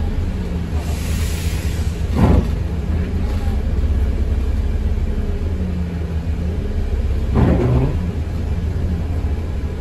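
ADL Enviro200 MMC single-deck bus heard from on board: a steady low engine and road rumble, the engine note rising and falling as it drives, with two short louder noises about two and seven and a half seconds in.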